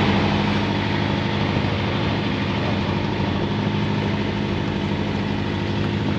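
Small sailboat's engine running steadily while motoring along, with a constant rush of wind and water over it.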